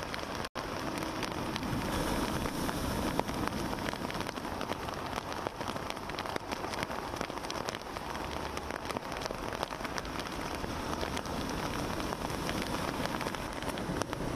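Heavy monsoon rain pouring steadily, with many sharp raindrop ticks close to the microphone over the wash of rough sea breaking on the seawall's tetrapods. The sound cuts out for an instant about half a second in.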